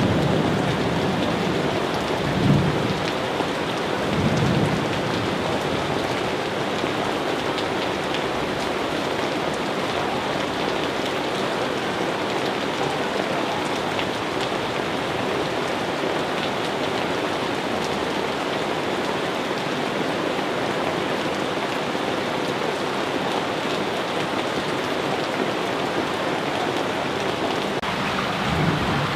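Steady, dense rainfall, a continuous even hiss, with brief low rumbles of thunder about two and four seconds in and again near the end.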